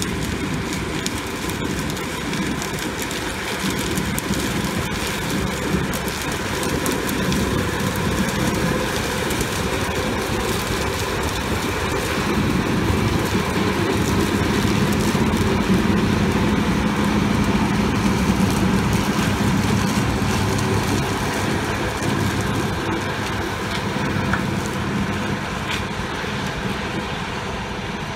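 New Holland TC5070 combine harvester running steadily while harvesting sunflowers, a continuous engine and threshing-machinery hum. It grows louder as the combine passes close, about halfway through, then eases slightly as it moves away.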